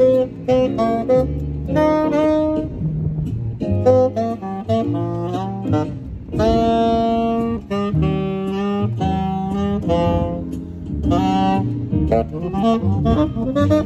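Tenor saxophone played live, a jazzy melody of quick short phrases with a few longer held notes around the middle.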